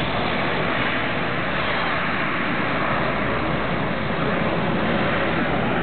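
Lockheed C-130 Hercules climbing away after takeoff, the steady roar of its four turboprop engines at climb power.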